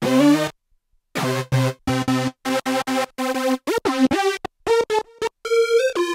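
Korg RK-100S 2 keytar playing a synth patch: short, detached notes with brief gaps between them, a pitch dip and glide a little after the middle, then higher single notes near the end.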